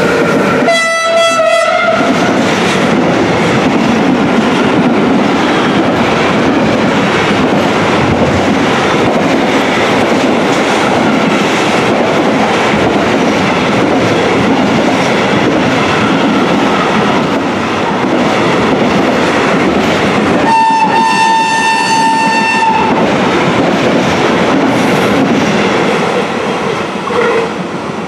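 FS Gr. 740 steam locomotives hauling a train past at close range, a loud steady rush of running gear and wheels on the rails. A whistle sounds briefly about a second in, and a second, higher whistle sounds for about two seconds past the middle.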